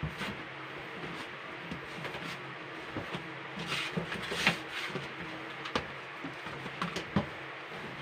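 Marshmallow fondant being kneaded by hand on a stainless-steel table: irregular soft knocks and squishing rubs as the dough is pushed and turned, busiest around the middle, over a low steady hum.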